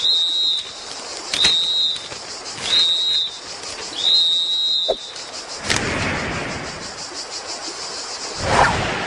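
Four short high whistle blasts, evenly spaced about a second and a bit apart, the last one held longer. About halfway through they give way to a rushing whoosh of air, which swells again near the end.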